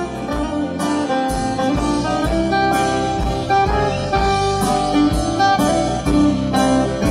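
Live country-roots band playing an instrumental intro: acoustic and electric guitars over drums keeping a steady beat.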